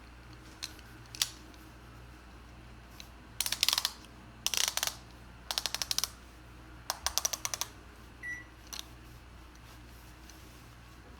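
Ratchet belt buckle clicking as the leather strap is pulled through its track: a couple of single clicks, then four quick runs of rapid clicks.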